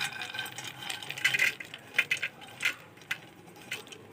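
Metal clinks and scrapes of a frying pan and spoon as ghee-fried cashews and raisins are tipped out of it into a pot of payesh: an irregular string of sharp clinks with a short ring, loudest about a second and two seconds in.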